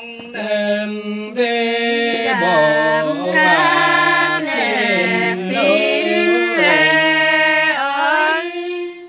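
A man singing unaccompanied in Nùng call-and-response folk style (hát đối đáp). One voice holds long notes and slides between them, with short breaths between phrases and no instruments.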